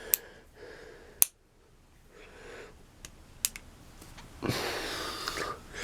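A few sharp clicks as a LeMat percussion revolver is handled, three separate clicks spread over about three seconds. A longer rustling noise follows near the end.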